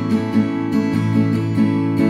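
Background music: a Christian song's instrumental passage of strummed acoustic guitar in a steady rhythm.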